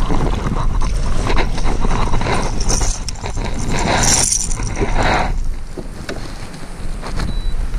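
Wind rumbling on the microphone while a bass is reeled in on a baitcasting reel. A splash of water comes about four seconds in, as the fish is lifted from the water.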